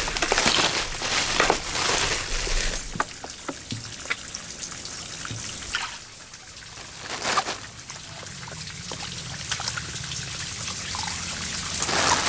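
Water trickling and splashing in uneven small splashes, heaviest in the first few seconds and again briefly about seven seconds in.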